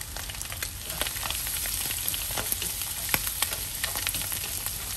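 Minced garlic sizzling in hot oil in a wok, a steady hiss with frequent sharp crackles, while a spatula stirs it through the pan.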